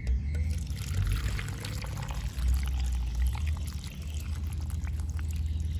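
Pickling brine poured from a metal pot into a plastic tub packed with sliced peka (Indian trumpet-tree) pods, the liquid splashing over the pods to cover them, with a low rumble underneath.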